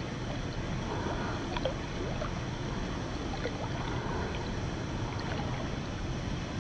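Steady rushing of a river pool fed by a waterfall, picked up right at the water's surface, with a few faint short ticks scattered through it.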